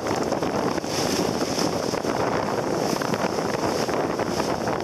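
Wind buffeting the microphone over the rush of choppy, wind-whipped sea water, a dense steady noise that surges and eases throughout.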